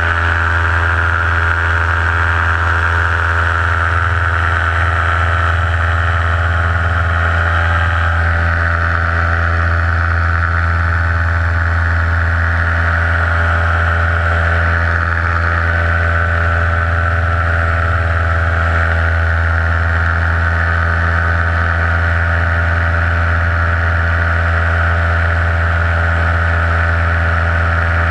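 Paramotor engine and propeller running at a steady throttle, a constant unchanging drone.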